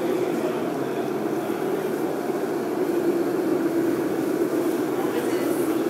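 Steady low drone of a running portable industrial dehumidifier.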